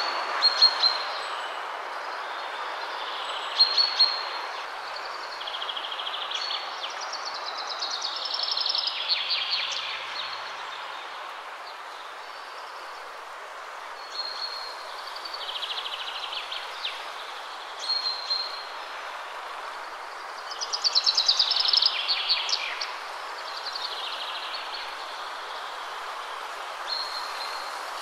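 Small birds chirping, with two longer rapid trills, over a steady background hiss.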